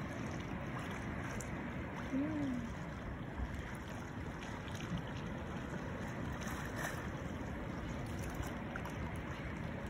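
Steady wash of sea water and wind below the pier, with a few small splashes from a hooked fish thrashing at the surface.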